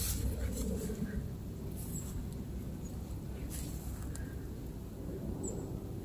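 Low wind noise on the microphone, with light rustling and a few soft clicks from grass and undergrowth brushing past while someone walks.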